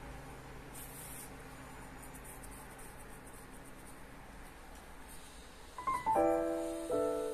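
Quiet room tone with a faint steady hum and a brief soft rustle about a second in; about six seconds in, solo piano music begins with a few ringing chords.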